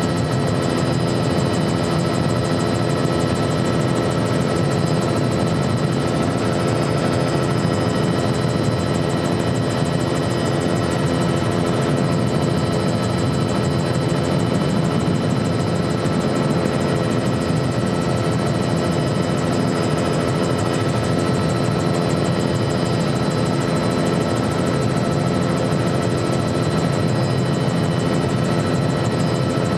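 Helicopter in steady flight: a constant engine and rotor drone with several held higher tones above it, unchanging throughout.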